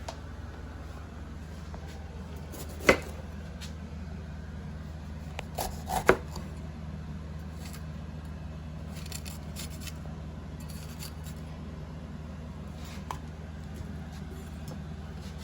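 A few sharp knocks of kitchen utensils on a hard surface: one about three seconds in and a quick cluster of two or three around six seconds, over a steady low hum.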